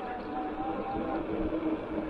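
Electric mountain bike riding on pavement: a steady whine from its electric hub motor over a constant rush of tyre and air noise.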